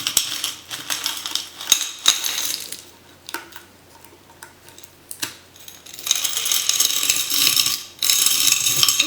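Loose costume jewelry (metal pieces, beads and earrings) jingling and clinking as hands rummage through a pile of it, in two spells with a quieter stretch of a few small clicks in between.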